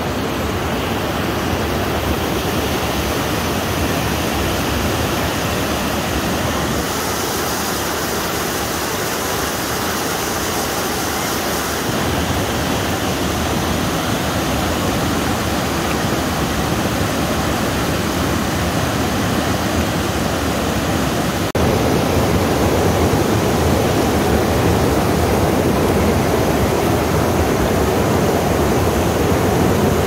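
River water rushing over shallow rock rapids and a low cascade, a steady rush that abruptly gets louder about two-thirds of the way through.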